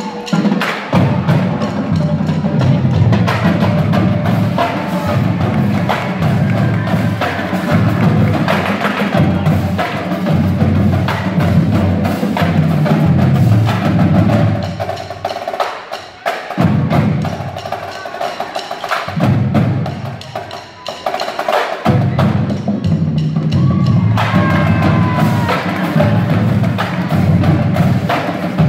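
Indoor high-school drumline of snare drums, multi-tenor drums and bass drums playing a fast percussion routine, falling briefly softer twice about halfway through before coming back at full strength.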